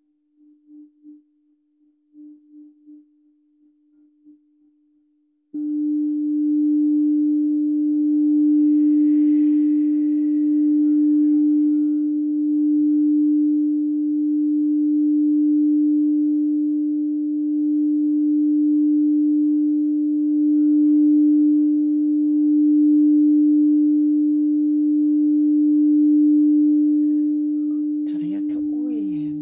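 Crystal singing bowl sounding one steady, sustained tone that swells and fades slowly in loudness. It wavers faintly at first, then comes in suddenly at full strength about five seconds in.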